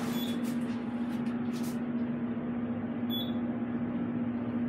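Steady hum and air noise inside a traction elevator car travelling upward, with one low tone held throughout. A short high beep sounds about three seconds in.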